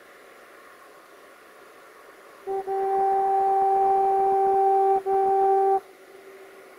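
Horn of an approaching VT614 diesel multiple unit, one steady note sounded a couple of seconds in: a quick blip, then a long blast of over two seconds, a brief break, and a shorter final blast. Faint steady hiss sits underneath.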